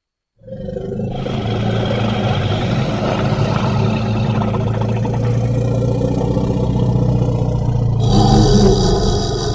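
Ankylosaurus creature sound effect, layered from animal calls that include elephant: a long, low, rough rumbling growl. It starts after a brief silence and turns brighter and slightly louder near the end.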